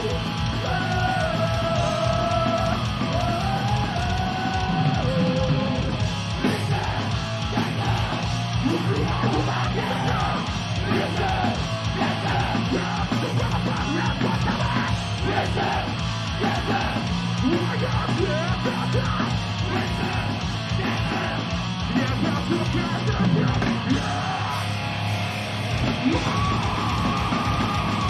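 A heavy metal band playing live: fast kick drumming under distorted guitars, with yelled vocals. The bass drum drops out for a moment near the end.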